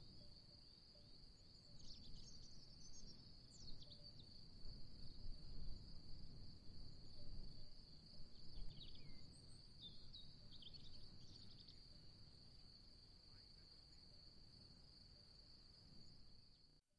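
A steady high-pitched insect trill, with short bird chirps a couple of seconds in and again around the middle, over a faint low wind rumble. The whole sound drops out briefly near the end.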